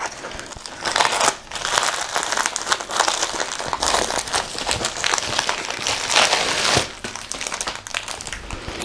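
Plastic wrapping and a diamond-painting canvas being unpacked and unfolded, crinkling and crackling continuously with several louder crinkles.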